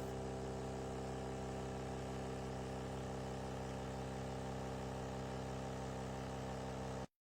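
Nespresso CitiZ capsule espresso machine brewing: its vibration pump runs with a steady, even buzzing hum, which cuts off suddenly near the end.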